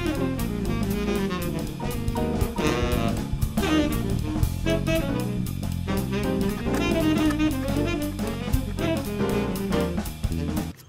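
Background jazz music with saxophone and drum kit and a steady beat, cutting off abruptly at the very end.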